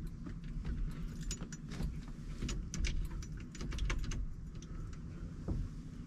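Keys jangling on their ring and small metal clicks as a new ignition lock cylinder, key inserted, is pushed and turned into its seat in a Chevy C10 steering column. The clicks come scattered and irregular.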